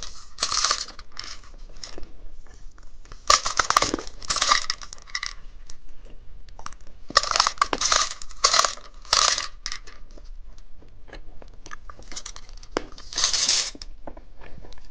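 Plastic candy wrappers crinkling and tearing in several bursts, with sharp clicks and taps of plastic between them as candy packaging is handled.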